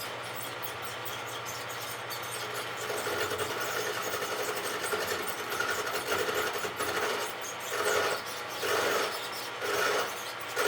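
Rockwell wood lathe running with a steady motor hum while a hand-held turning tool cuts the spinning wooden bat blank. The scraping of the cut swells about once a second as the tool is worked along the piece.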